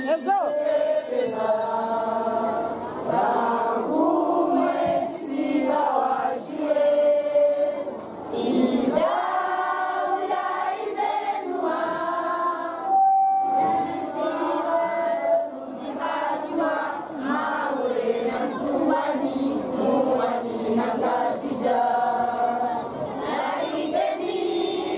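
A crowd of voices singing an anthem together, with long held notes.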